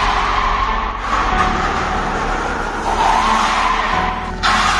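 16-inch ATV tires on an electric scooter skidding in a burnout: a rough, noisy tire squeal that swells and eases several times.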